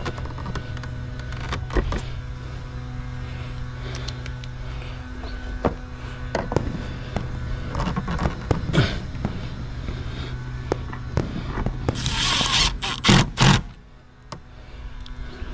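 Light knocks and scrapes from a plastic EV charger housing being handled against wall siding, over a steady background hum. Near the end a loud rushing noise lasts about a second and a half.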